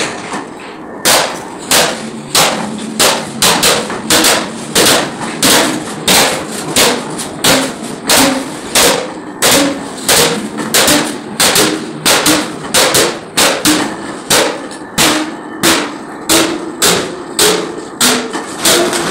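Hand hammers striking a large domed iron sheet that is being shaped into a jaggery-boiling karahi: steady blows about two a second, each with a short metallic ring.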